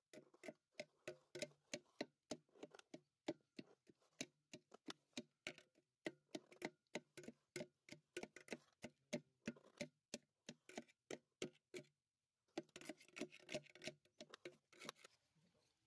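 Kitchen knife cutting guava into pieces on an aluminium tray: quick, uneven taps of the blade against the metal, several a second. They pause briefly about twelve seconds in, resume, and stop near the end.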